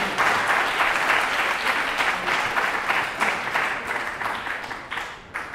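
Audience applauding, a dense patter of many hands clapping that gradually dies down toward the end.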